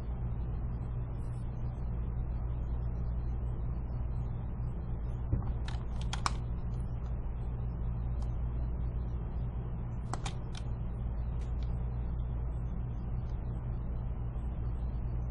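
Sharp clicks from computer keyboard and mouse use: a quick group of three about six seconds in and a pair about ten seconds in, with a few fainter ticks, over a steady low hum.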